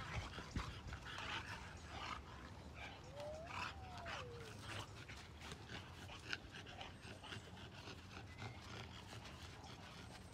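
A playing dog panting in short breathy bursts, with small scuffs and ticks of movement and one short whine that rises and falls about three seconds in.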